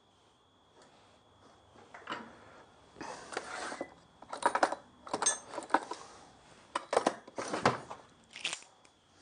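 Metal hand tools clinking and clattering on a workbench as they are picked up and moved about. Irregular knocks and jingles come about two seconds in and thicken to a cluster between three and eight seconds, one with a brief bright metallic ring.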